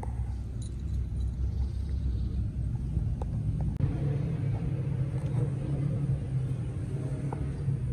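Low, steady rumble of an engine running, its hum growing stronger about four seconds in.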